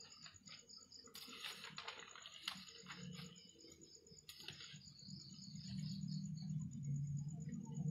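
A large sheet of paper rustling and crackling as it is handled and turned, most between about one and three seconds in and briefly again a little after four seconds.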